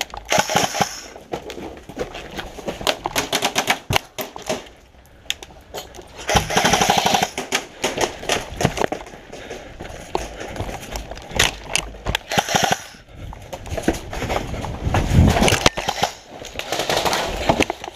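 Airsoft guns firing in rapid bursts of sharp clicks and rattles, with scuffing and rustling of gear between the bursts.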